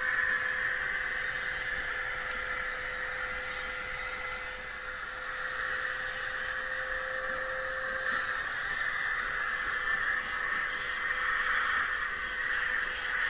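Steady whooshing hiss of a vacuum cleaner running, with a faint steady hum under it that fades out about two-thirds of the way through, heard as playback through a laptop's small speakers.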